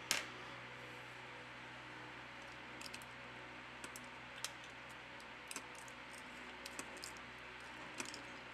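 Small light clicks and taps of a smartphone motherboard being handled and fitted into its mid-frame: one sharper click at the very start, then scattered light clicks from about three seconds in, over a steady low hiss.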